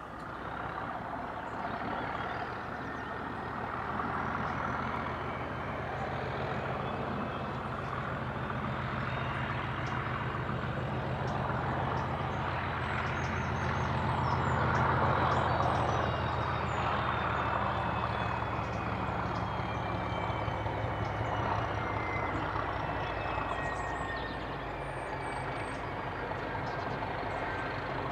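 Class 37 diesel locomotive's English Electric V12 engine running out of sight: a steady low engine note with a high turbocharger whistle. It grows louder towards the middle, eases off, then rises again near the end, the whistle slowly falling in pitch.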